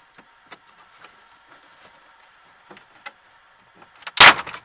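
Light plastic clicks and ticks from a dashboard trim bezel being worked loose by hand, then a loud, short plastic clatter near the end as the panel knocks against the dash.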